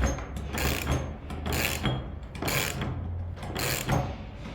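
Nut on the Husqvarna 143R brush cutter's trimmer-head shaft being tightened with a hand tool: a run of irregular metallic clicks and scrapes, about two or three a second.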